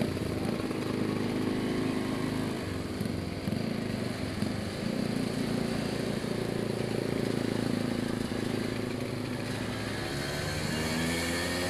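Vespa scooter engine running on the move, its pitch shifting with the throttle, over wind and road noise.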